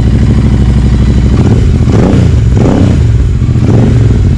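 Royal Enfield Continental GT650's 648 cc parallel-twin idling through a Power Race slip-on exhaust, with about three quick throttle blips that rise and fall in the middle before it settles back to idle.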